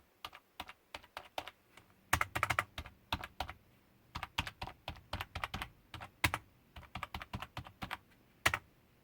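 Typing on a freshly cleaned and reassembled Dell computer keyboard, its keys clicking. A few scattered key presses at first, then quick runs of keystrokes from about two seconds in, ending with a single key press near the end.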